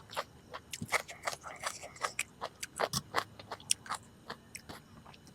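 A person chewing food close to the microphone: a quick, irregular run of small sharp mouth clicks and smacks.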